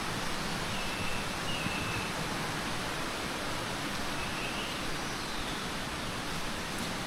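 Steady rush of flowing water from a stream, with a few faint, brief bird calls over it.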